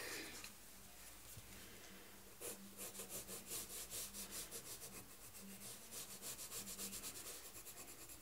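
Green colored pencil shading back and forth on drawing paper: quick, even, scratchy strokes, about five a second, starting about two and a half seconds in.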